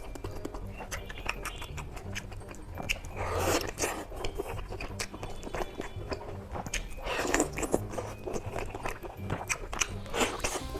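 Close-miked eating: chewing with many sharp crunchy clicks, and three louder crunching bites spaced a few seconds apart.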